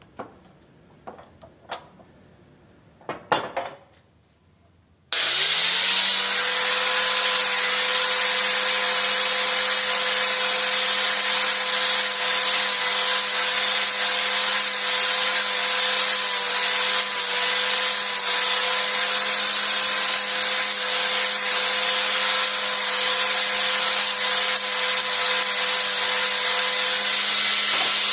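A few knocks and clicks, then about five seconds in an electric power tool switches on. Its motor spins up quickly and runs steadily at full speed with a loud hiss.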